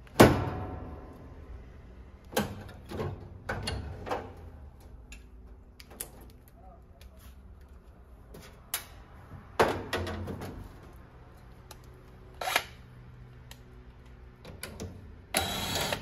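A sharp clack as the range hood's front control panel is pulled open, then scattered knocks and clatters as the panel is worked loose and lifted off. Near the end, a brief burst from a cordless impact driver on a screw.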